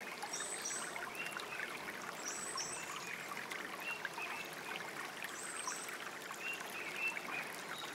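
Running water trickling steadily, with short high chirps in pairs every two to three seconds over it.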